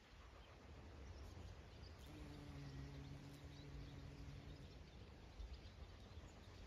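Near silence of open countryside: a faint low rumble with scattered faint bird chirps. A faint steady low hum comes in about two seconds in and fades out near the end.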